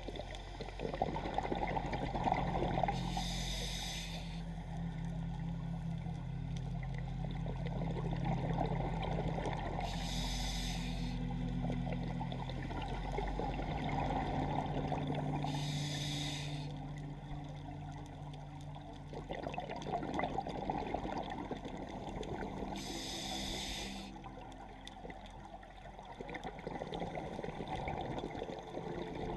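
Scuba diver breathing through a regulator underwater: a short hiss on each inhalation, four times about six to seven seconds apart, with the rumbling bubble noise of exhaled air between breaths.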